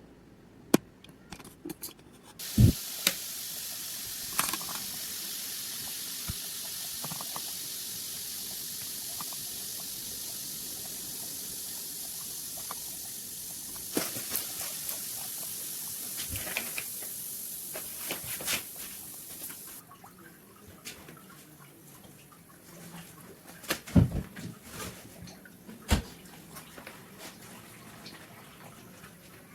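Water running steadily from a tap for about seventeen seconds, starting and stopping abruptly, with sharp knocks and clicks of small metal parts being handled. The clicks continue after the water stops, with the loudest knocks near the start and about two-thirds of the way in.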